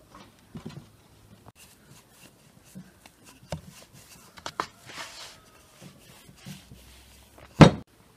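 A wooden rolling pin and hands working a large sheet of dough on a wooden pastry board, giving scattered light knocks and taps with a brief rustle. One loud thump comes near the end.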